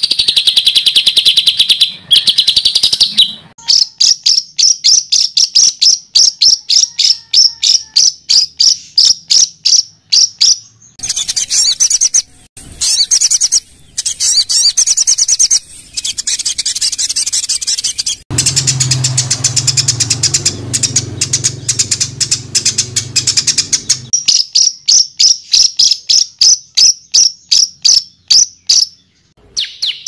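Songbird song of the rapid 'tembakan' kind used to tutor cage birds: fast runs of sharp, high repeated notes, several a second, changing from one trill or chatter pattern to another every few seconds. A little past the middle, a low steady hum sits under the calls for several seconds.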